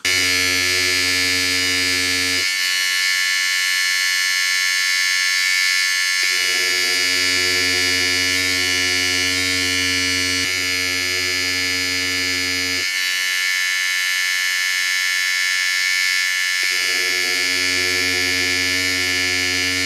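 Electric shaver buzzing steadily while held against a phone mount to shake it, as a vibration source for testing a vibration dampener. A deeper hum in the buzz drops out twice for a few seconds and comes back.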